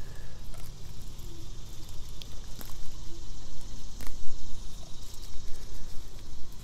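Pine needles being pulled by hand from a Bosnian pine bonsai, giving scattered small snaps and rustles of needles over a steady low rumble.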